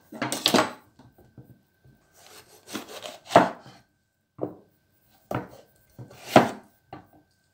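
A knife cutting a capsicum (bell pepper) on a cutting board: about six chopping strokes at an irregular pace, each a short sharp knock, some with a brief scrape.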